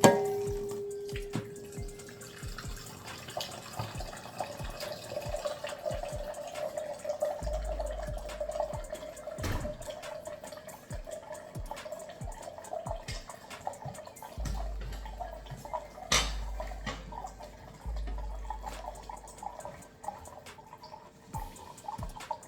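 Water running from a kitchen tap into a measuring cup as it fills, with a sharp knock partway through.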